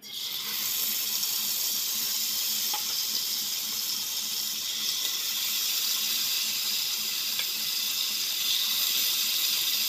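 Yogurt-marinated chicken pieces frying in hot oil in a pan: a steady, even sizzle.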